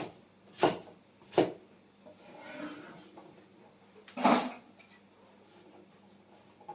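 Kitchen handling sounds: four sharp knocks, one at the start, two within the next second and a half and one a little past four seconds in, with a short rubbing noise between them.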